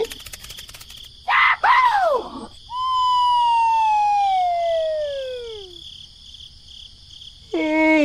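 Edited-in pitched sound effects: two short rising-and-falling whoops, then one long tone gliding slowly down in pitch for about three seconds, and another falling tone starting near the end.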